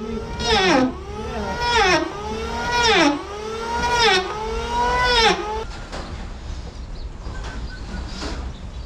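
Corded electric drill boring into the hardwood frames of a wooden boat. Its motor whine dips in pitch and recovers about once a second as the bit is loaded and eased off, then stops about five and a half seconds in.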